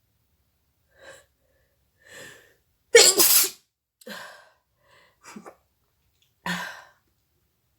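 A woman sneezing in a run of short bursts, the loudest about three seconds in, with smaller bursts before and after it.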